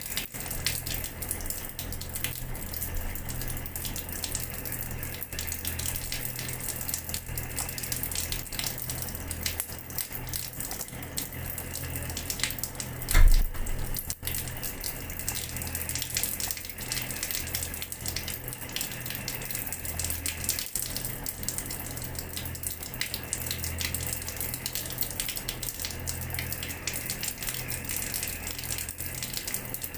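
Tap water running and splashing onto a floor, a steady stream of small splashes, with one louder low thud about 13 seconds in.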